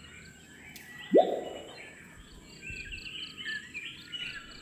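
Small birds chirping and twittering, with one loud, short rising sound about a second in.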